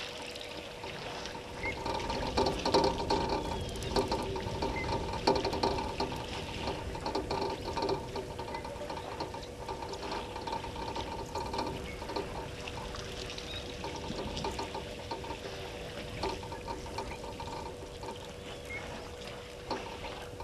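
Water splashing and pouring, loudest in the first few seconds, as elephants drink and splash with their trunks.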